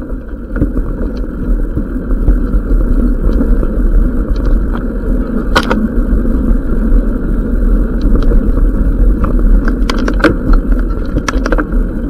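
Mountain bike riding down a dirt singletrack, heard from the ride-along camera: a steady muffled rumble of tyres on the trail and wind, with scattered sharp knocks and rattles from bumps, a louder one about five and a half seconds in and a cluster around ten to eleven seconds.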